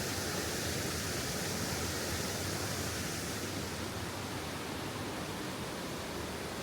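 Steady rushing roar of a waterfall cascading through a rocky gorge, easing slightly in the upper range about halfway through.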